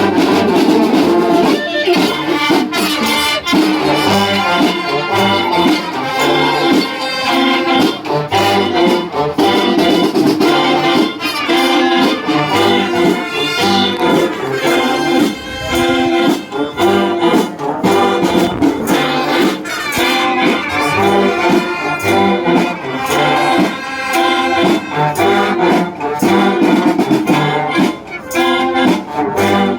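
Wind band with trumpets and trombones playing a piece, continuous and full throughout.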